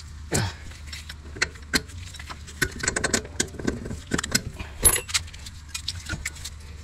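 Metal clinks and rattles as the bare front hub and steering knuckle are gripped and worked by hand, with scattered sharp clicks, a quick run of them about three seconds in and one louder clink just before the five-second mark.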